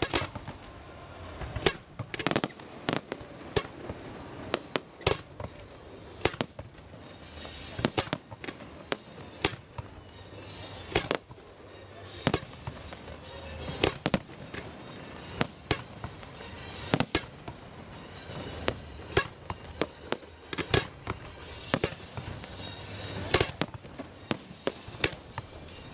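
Aerial fireworks display: a long run of sharp bangs at irregular intervals, sometimes several a second, over a continuous hissing and crackling background.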